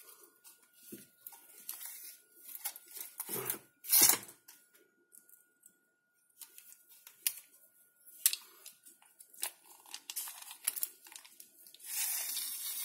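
Fishing spring feeder and its fine nylon mesh net being handled and spread out: light rustling and scattered clicks, with one louder knock about four seconds in.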